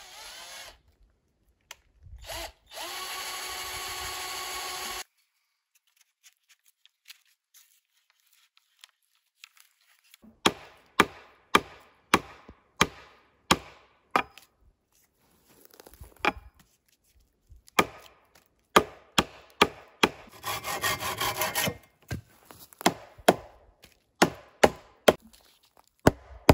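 A cordless drill runs in a short burst, then for about two and a half seconds. After a pause, a hatchet strikes wood about twice a second, cutting a notch in a log post. Near the two-thirds mark there is another brief drill-like run.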